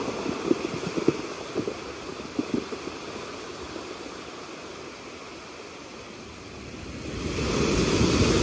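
Small waves washing over a beach of dark rounded stones. In the first few seconds the water draws back with a few sharp clicks of stones knocking together. It then eases off, and a new wave breaks and swells to the loudest point about seven seconds in.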